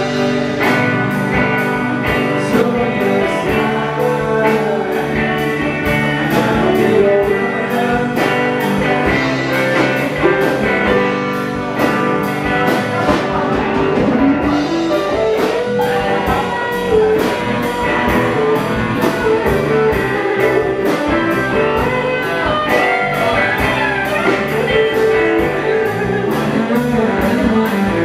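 A live rock band playing: electric guitars and bass over a steady, even beat.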